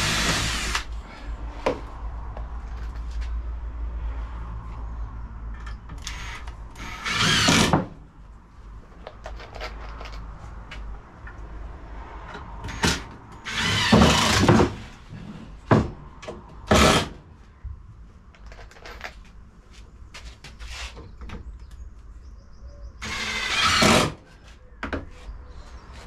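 Cordless drill driving screws into timber in several short bursts of about a second each, two of them quick and close together near the middle. Quieter knocks and handling of wood and screws come in between.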